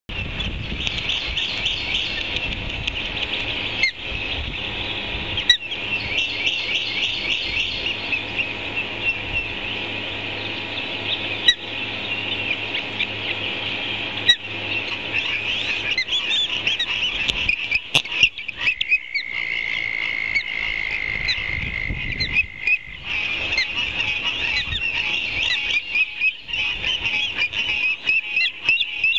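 A dense chorus of rapid high chirps and calls from birds and frogs. A steady high trill runs from about 19 to 23 seconds in, and a few sharp ticks stand out.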